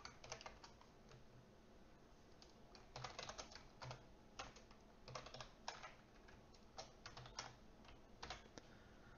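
Faint computer keyboard typing: quick clusters of keystrokes, with a pause of about two seconds after the first second, then typing again in short runs.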